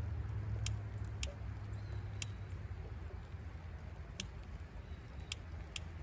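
Young wood fire in a stone fire pit crackling, with about six sharp, irregular pops, over a steady low rumble.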